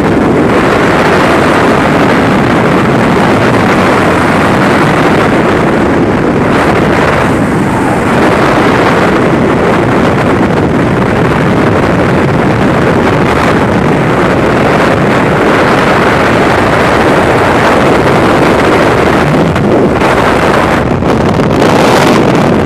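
Loud, steady wind rush buffeting a helmet camera's microphone in skydiving freefall.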